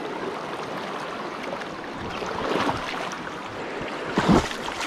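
Rushing river water running over rocks, a steady wash of noise, with a brief louder burst about four seconds in.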